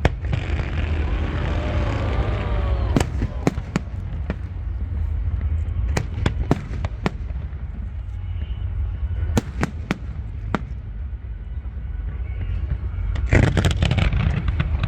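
Fireworks display: a stretch of crackling at the start, then a string of single sharp shell bursts, and dense crackling again near the end, over a steady low rumble.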